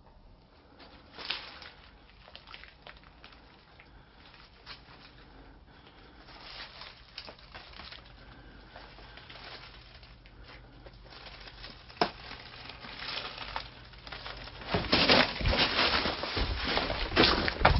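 Faint scattered rustles and ticks, one sharp click about twelve seconds in, then loud crunching and rustling from near the end: footsteps over dry leaves and broken boards.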